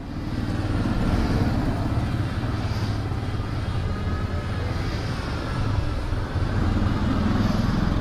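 Motorcycle engine running steadily while riding, under an even haze of wind and road noise.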